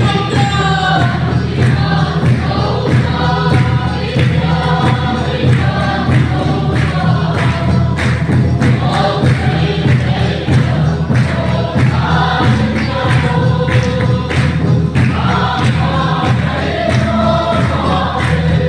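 A group of voices singing a gospel song together, over accompaniment with a steady beat.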